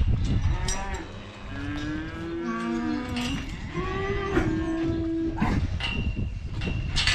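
Calves in a cattle race bawling: two long moos in the middle, the first wavering in pitch and the second held steady, with scattered knocks around them.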